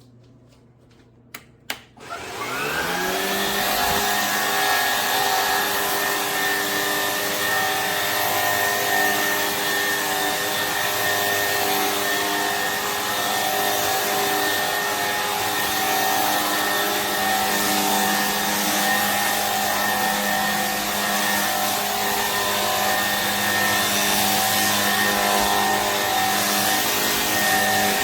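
A few sharp clicks, then a cordless stick vacuum's motor starts about two seconds in, rising in pitch as it spins up, and runs steadily with a whine over a rushing hiss.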